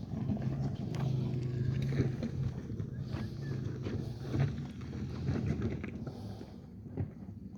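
A large engine running steadily with a low hum, with a few knocks and clanks, easing off somewhat after about four and a half seconds.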